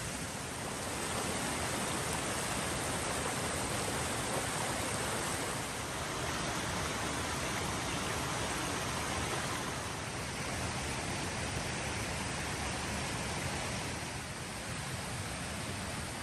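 Steady rushing of a flowing creek, with a slight swell about a second in.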